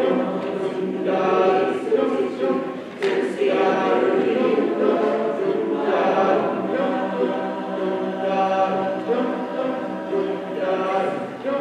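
Choir singing in long, held chords, with short breaks between phrases.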